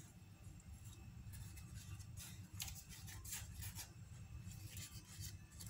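Faint crinkling and rustling of parchment paper and pastry as hands fold and press the pastry crust edge around a pie pan, in short bursts mostly in the middle of the stretch, over a low steady hum.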